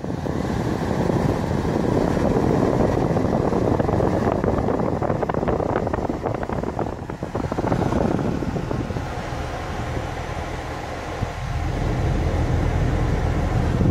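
Steady low rumbling noise in the cabin of a Chevrolet Camaro with its engine running, dipping briefly a few times.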